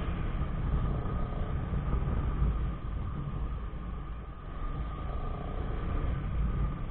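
Motorcycle being ridden, its engine running under heavy wind rumble on the action camera's microphone, with a steady whine above the rumble.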